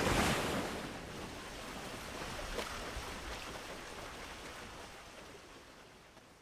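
A rush of noise that peaks at the start and slowly fades away, with a faint tap about two and a half seconds in.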